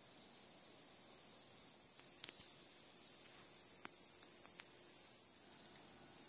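Cicadas buzzing in the trees: a steady high drone that swells louder about two seconds in and falls back a few seconds later.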